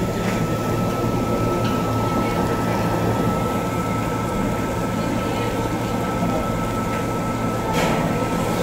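Steady restaurant din at a tabletop grill: a low, even rumble with faint murmured voices and a thin steady high-pitched tone. Near the end there is one short clack as metal tongs touch the grill tray.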